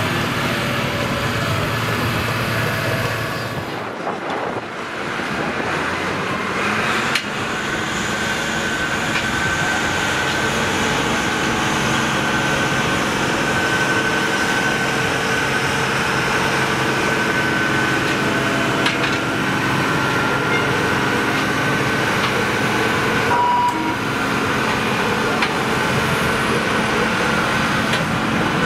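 Diesel engine of a farm tractor working hard under steady load as it hauls a pulling sled down the track, with a steady high whine over it from a few seconds in.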